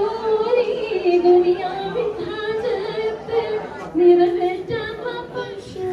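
A woman singing solo into a microphone, holding long notes in slow phrases.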